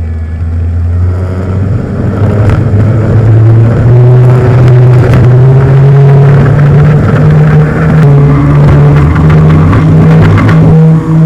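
Twin motors of an RC Beechcraft Duke B60 model plane, heard up close from a camera on board, throttling up with a rising pitch over the first few seconds and then holding a loud, steady high-power drone.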